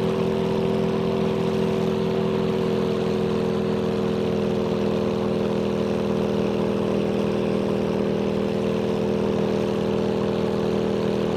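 An MQ-1 Predator's four-cylinder piston engine and rear pusher propeller running steadily on the ground, the pitch creeping up slightly a few seconds in.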